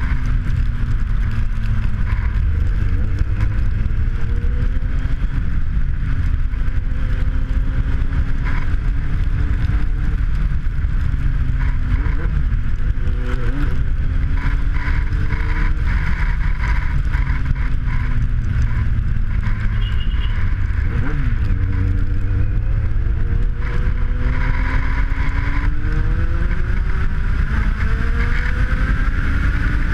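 Kawasaki Z750's inline-four engine under way on the motorcycle, its pitch repeatedly rising as it accelerates and dropping back, with a steady rumble of wind on the microphone.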